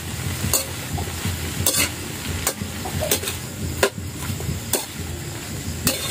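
Fiddlehead fern greens stir-frying in a wok with a steady sizzle, while a spatula scrapes and knocks against the pan about once a second.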